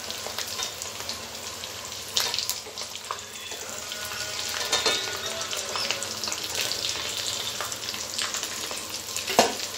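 Hot oil sizzling in a metal kadai as fried boiled potatoes are lifted out with a ladle, the ladle knocking against the pan a few times.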